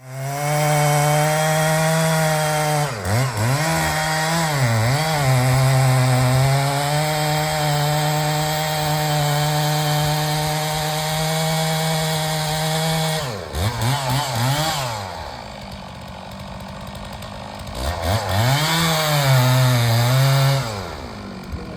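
Chainsaw engine running at high revs as it cuts into a tree. The revs dip and rise twice a few seconds in, fall back to a quieter idle about two-thirds of the way through, then rev up again near the end.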